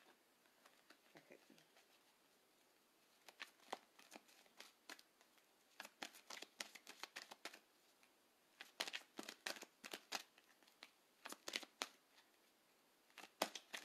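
Flower Therapy oracle cards being shuffled by hand: faint quick card flicks and snaps in about five short spells, with pauses between them.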